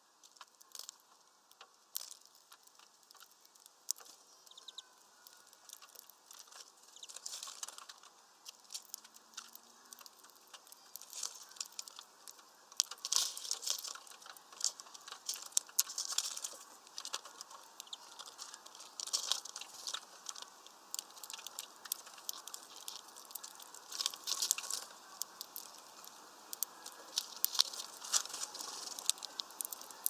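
Finches, European greenfinches among them, feeding at a mesh seed bag: an irregular stream of sharp clicks, taps and scratchy crackles from pecking at the seeds and feet on the perches, sparse at first and much busier from about seven seconds in.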